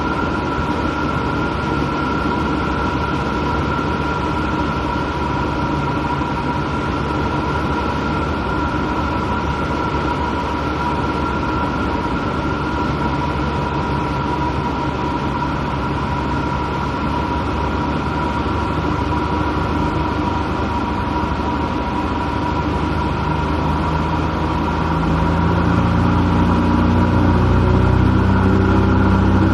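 Light airplane's engine and propeller droning steadily in the cabin in flight, with a steady high whine over the rumble. Near the end the drone grows louder and fuller in the low end.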